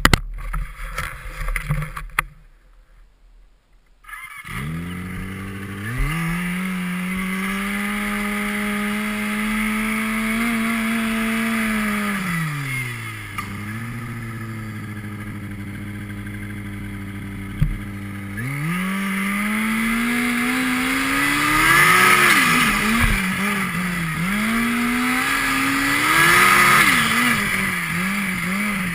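Turbocharged snowmobile engine under way across snow. Its revs climb about four seconds in and hold steady, drop back to idle around the middle, then rise again and swing up and down near the end, with a rushing hiss at the peaks. Before the engine comes in there are a few seconds of clatter and a short quiet gap.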